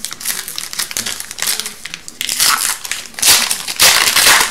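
A hockey card pack's foil wrapper being torn open and crinkled by hand, a crackling rustle that grows louder in the second half.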